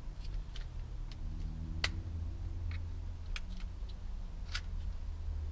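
A handful of light, sharp clicks from an ignition lock cylinder and its housing being handled and worked with the key, the sharpest about two seconds in, over a steady low hum.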